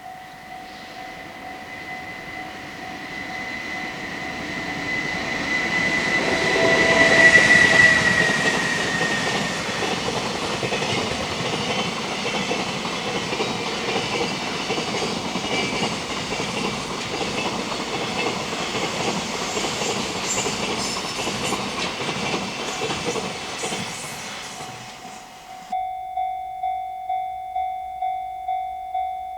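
A container freight train hauled by an EH500 electric locomotive passing close by. Its noise builds to its loudest about seven seconds in, then the wagons run past in a long steady clatter of wheels over the rails before fading. Near the end the sound cuts abruptly to a repeating ding, about twice a second.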